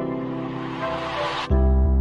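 Outro background music: sustained keyboard chords under a noisy whoosh, then a loud, deep bass hit about one and a half seconds in.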